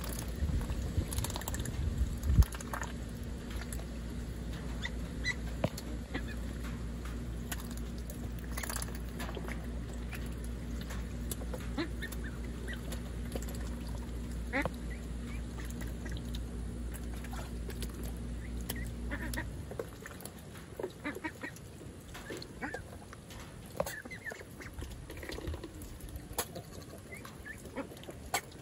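Young ducks quacking and calling in short scattered bursts, with small clicks and splashes as they dabble in feed and water. A steady low hum runs underneath and stops suddenly about two-thirds of the way through.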